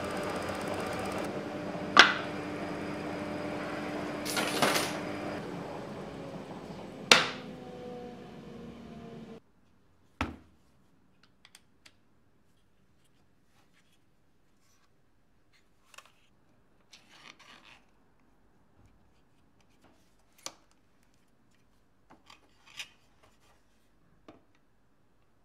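Bench disc sander running, its motor tone slowly falling and fading as it spins down, with two sharp knocks; the sound cuts off abruptly about nine seconds in. Then faint clicks and small rattles of stops being set on a domino cutter.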